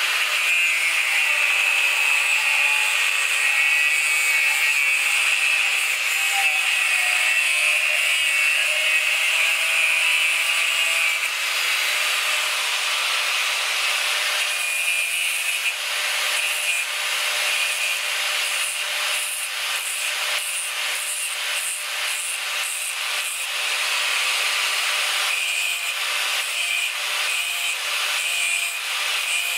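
Angle grinder with a thin cutting disc running steadily with a high motor whine, cutting through a length of threaded steel bar. About halfway through the tone changes and a rapid pulsing comes in as a short piece of the bar is held against the spinning disc to dress its cut end.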